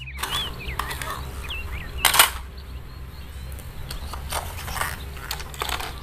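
Scattered clicks and knocks of plastic toys being handled, with one louder knock about two seconds in. Faint bird chirps can be heard in the first second.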